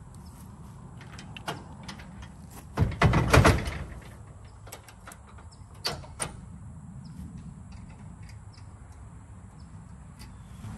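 Metal clanks and clicks of a utility trailer's coupler being worked onto a pickup truck's hitch ball and latched. The loudest clatter comes about three seconds in, with two sharp clicks around six seconds.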